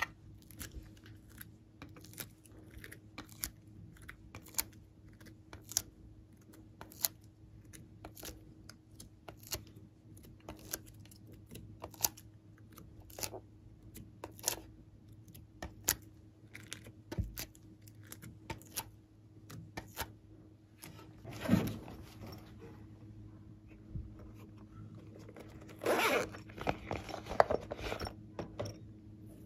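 Small sharp clicks and taps, about two a second, of coloured clay pieces being worked out of a clear plastic mould and pressed onto slime. Near the end, longer rasping sounds of a zipper being opened on a silicone pop-it purse.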